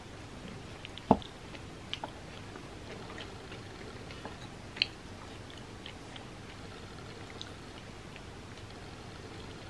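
Metal spoon digging into a soft chocolate-topped caramel pie in a glass pie dish, with a sharp clink against the glass about a second in and smaller clicks near two and five seconds.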